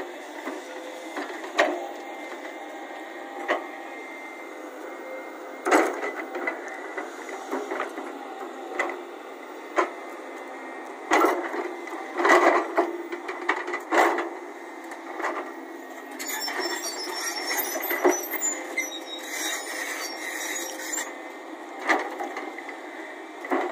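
Volvo crawler excavator digging hard red earth and rock: the steel bucket scraping and knocking against the cut face in sharp, irregular knocks, loudest about halfway through, over the machine's steady running with a thin high whine.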